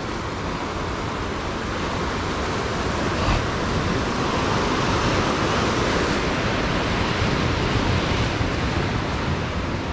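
Sea surf breaking and washing against the shore rocks just below, a steady rushing that swells louder through the middle.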